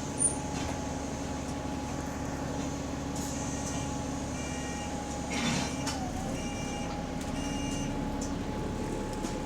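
Bus drivetrain running on the move, with a steady, subtle high whine from the rear axle differential that sounds wrong. The whine holds one pitch, dipping briefly about six seconds in.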